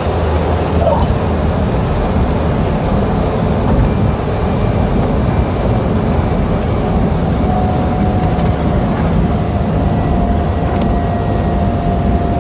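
Cessna 208 Grand Caravan's single Pratt & Whitney PT6A turboprop and propeller running, with heavy rushing air and rumble, as the plane rolls along the runway after landing. A thin steady whine joins about halfway through.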